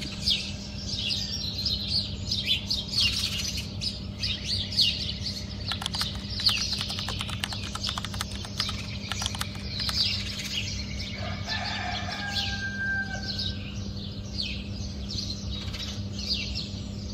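Songbirds chirping and singing with many quick, falling notes over a steady low hum. A rooster crows once, drawn out for about two seconds, around eleven seconds in.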